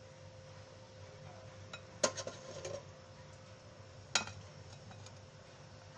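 Metal spoon clinking against a glass mixing bowl of batter, two sharp clinks about two seconds apart, each with a short ring.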